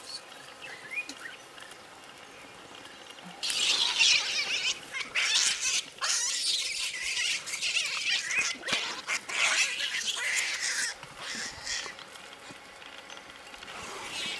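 Baboons screeching and squealing in harsh, noisy calls that break out suddenly about three seconds in, go on in short bursts for some eight seconds, then die down.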